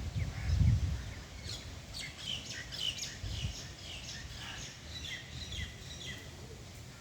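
Birds chirping: many quick, short high notes in a busy scatter, with a low rumble in the first second.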